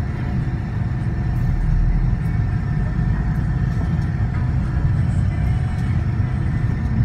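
Steady low engine and road rumble heard from inside a moving vehicle.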